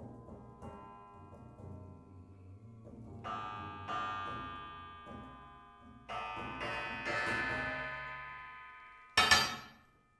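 Car suspension coil springs struck by hand, ringing with long, bell-like metallic tones that fade slowly. Strikes come about three seconds in and again about six seconds in, and a loud sharp hit near the end dies away within a second.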